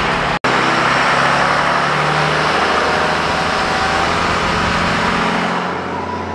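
Pickup truck driving along a road: steady wind and road rush with the engine running underneath, heard from the cab. The sound drops out for an instant about half a second in.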